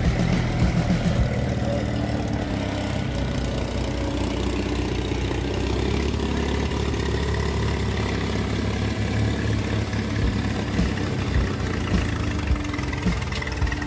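Homemade SAM tractor's engine running steadily at low speed as the small tractor is driven slowly across the yard.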